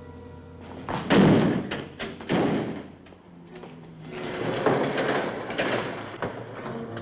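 Several heavy thuds and bangs, about four in a few seconds, the first the loudest, over faint background music.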